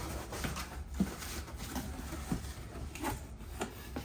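Shipping package being opened by hand: scattered rustles and light knocks of cardboard and wrapping.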